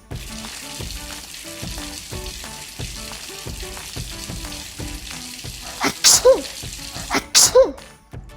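Two sneezes about a second and a half apart near the end, over soft background music and a steady hiss.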